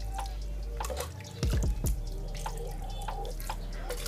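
Water dripping and splashing in quick, irregular drops over a steady low hum.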